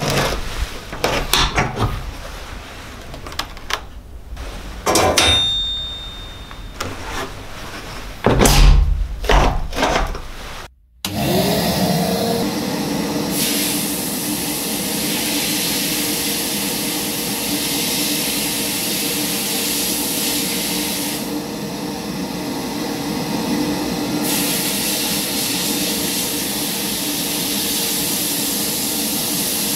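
Knocks and clunks of handling at a sapi Widder 70 sandblasting cabinet. Then the cabinet's extractor starts with a rising whine and runs with a steady drone, and the blast gun's loud hiss comes on as an old wrench is sandblasted, stopping for a few seconds near the middle and starting again.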